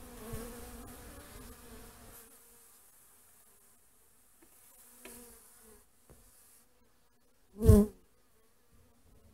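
Honeybees buzzing around a wooden hive entrance, a humming drone that fades after about two seconds into fainter passing buzzes. Near the end one bee flies close by with a brief, loud buzz.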